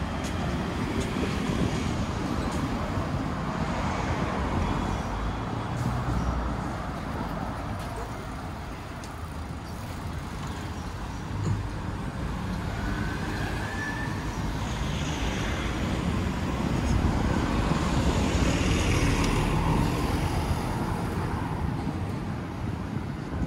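Steady street traffic from cars and buses passing on a busy city road. It swells louder for a few seconds past the middle, then eases off again.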